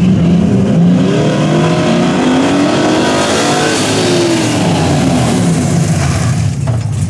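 Dodge Challenger T/A clone's V8 engine under hard acceleration on an autocross course, the revs rising and falling as the driver works the throttle, with a brief lift-off near the end as the car turns through the cones.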